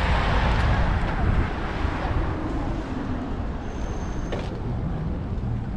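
City street traffic: a vehicle passes close, loudest at first and fading after about a second and a half, over a steady traffic rumble. A brief faint high tone and a click come near the middle.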